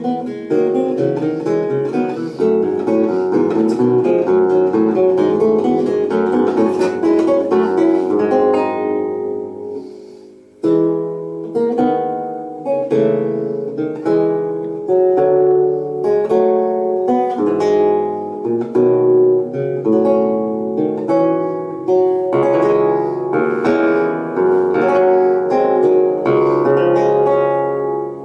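Solo theorbo playing a stream of plucked notes and chords. The notes ring away to a brief pause about ten seconds in, then the playing picks up again.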